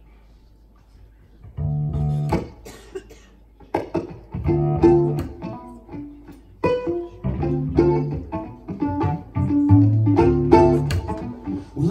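Instrumental intro played on plucked strings with a low cello bass line, starting about a second and a half in after a quiet room hush; the chords come in short phrases that stop and restart.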